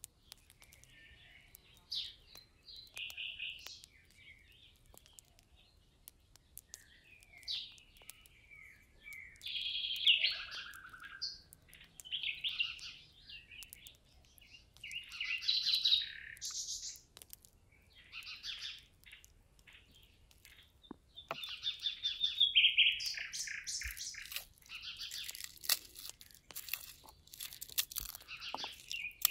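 Songbirds singing and chirping in repeated short phrases, busiest in the last third. A few sharp clicks and crackles near the end as a head of garlic is broken apart and peeled.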